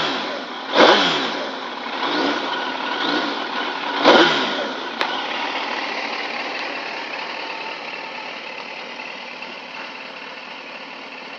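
2001 Suzuki GSX-R1000 K1's inline-four engine being blipped on the throttle: a sharp rev about a second in and another at about four seconds, with a couple of smaller ones between, each falling quickly back. It then settles to a steady idle that slowly gets quieter.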